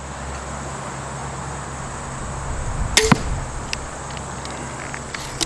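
80 lb crossbow pistol firing a bolt: a sharp snap of the string release about three seconds in, followed a split second later by a second knock as the bolt strikes the target.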